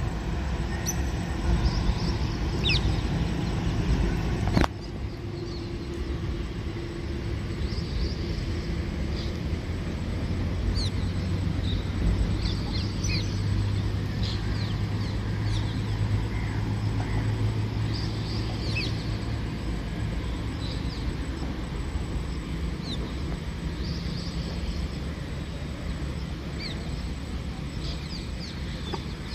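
Outdoor ambience: a steady low rumble with scattered short bird chirps. A low steady hum comes in for several seconds in the middle, and a single sharp click about four and a half seconds in is followed by a slightly quieter rumble.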